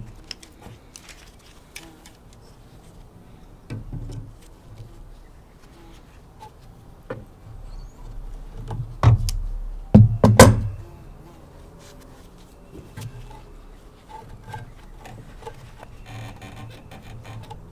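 Scattered small clicks and knocks of hand work on a lawnmower's fuel line and carburetor, with two louder thumps about nine and ten seconds in.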